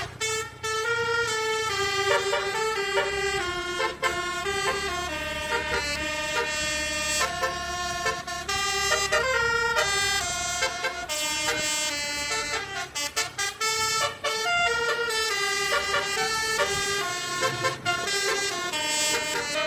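Basuri musical air horn playing a tune in quick stepped notes, with a low rumble underneath.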